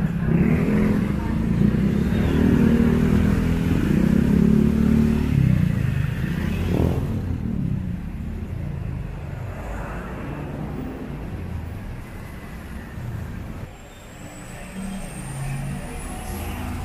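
Motor vehicle engine running close by on a city street, loud for the first six seconds and then fading to a lower traffic rumble. A faint high rising whine comes near the end.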